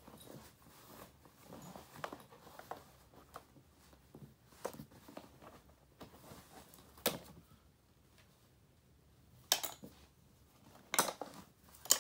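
Gloved hands handling broken plastic and metal pieces of a smashed cassette player: soft rustling and scattered light clicks, with several sharper clacks in the second half.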